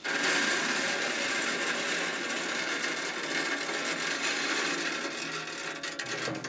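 Wood pellets (Pit Boss Competition Blend) pouring from a mesh basket through the grate into a Pit Boss pellet grill's metal hopper: a steady, dense rattle of many small pellets that begins abruptly and tails off near the end as the pour finishes.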